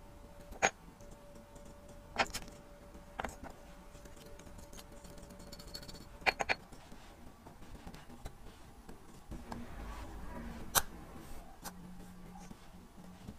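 Sharp, irregular clicks and taps of small metal watch parts and tools being handled and set down on a hard work surface, about six of them.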